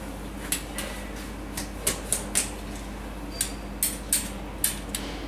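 Heavy steel snowplow tyre chain clinking in about a dozen sharp, irregular clicks as its links are handled and fitted onto the tyre.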